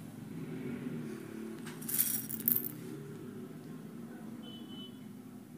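Small plastic craft beads clicking and clattering together in two quick bursts about two seconds in.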